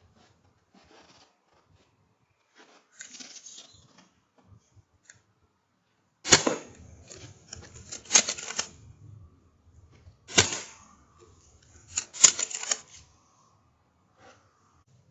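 Shots from a Daystate Wolverine R .177 PCP air rifle: several sharp cracks and clicks, the loudest coming about every two seconds in the second half, with fainter clicking before them.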